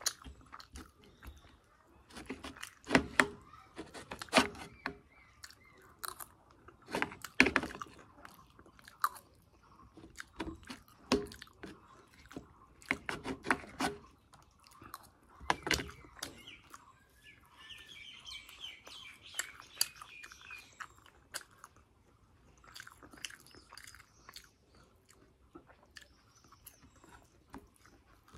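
Close-up chewing and lip-smacking of fried semolina puri dipped in curry, coming in bursts of wet mouth clicks and smacks.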